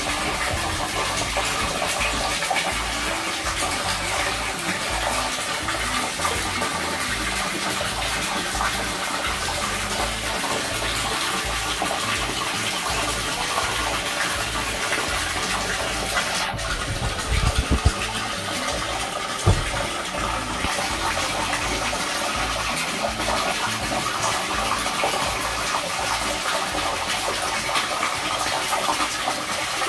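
Stream of water pouring steadily into a shallow inflatable pool. A few short thumps come a little past the middle.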